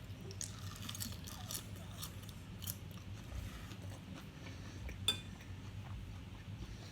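A person chewing and biting crunchy food close to the microphone: scattered small crackles and clicks, with one sharper click about five seconds in.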